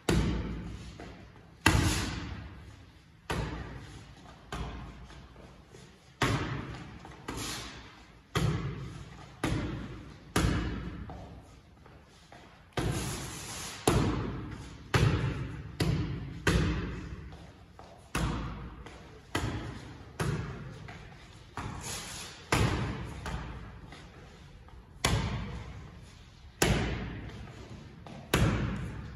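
Boxing gloves striking focus mitts held by a coach, a sharp smack about once a second, sometimes two in quick succession, each echoing briefly in the hall.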